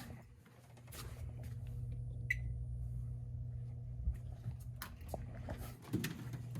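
Vending machine keypad and service-menu operation: a steady low hum, a few faint clicks and one short high beep about two seconds in, as a button is held down to enter the price-setting menu.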